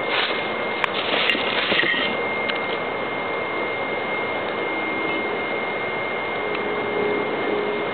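BioLite CampStove's fan running steadily under a small wood fire, with light ticking and crackling. A burst of rustling and a couple of sharp clicks come in the first two seconds.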